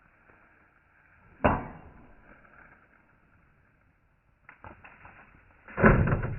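A machete chopping into wood: one hard chop about a second and a half in, then a run of lighter knocks ending in a loud chop near the end.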